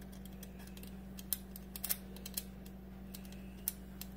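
Light, irregular clicking of a small screwdriver tip prodding and wiggling the worn bearing on a Grundfos circulator pump's rotor cartridge. The bearing has a lot of play and was being ground to pieces by debris in the heating system. A steady low hum runs underneath.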